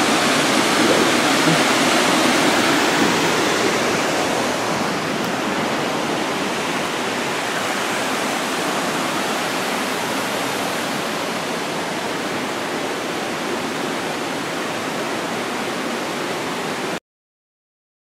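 Waterfall rushing, a steady dense roar of falling water that stops abruptly near the end.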